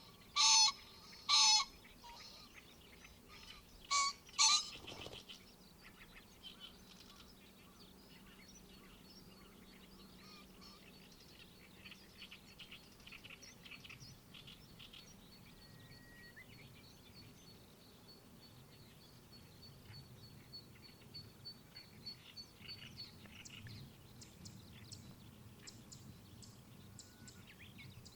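Wild birds calling in early summer: several loud, short, harsh calls in the first five seconds, then softer scattered chirping. A thin, steady high tone runs through the middle and stops a few seconds before the end.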